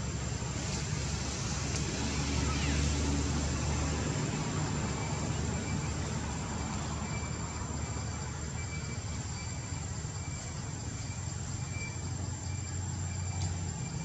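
Low, steady rumble of a motor vehicle engine running, its level shifting a little now and then, with a thin steady high-pitched whine above it.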